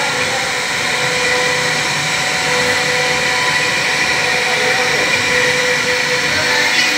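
CNC router spindle running steadily as it carves a wooden relief panel: a constant machine whine over an even noise of cutting.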